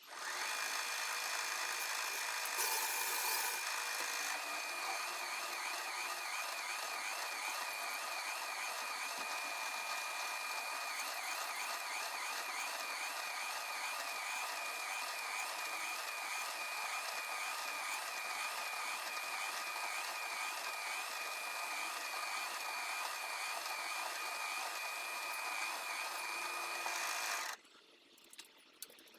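Small machine-tool motor running steadily with a high whine that wavers up and down in pitch for long stretches. It starts abruptly and cuts off suddenly near the end. There is a brief burst of hiss about three seconds in.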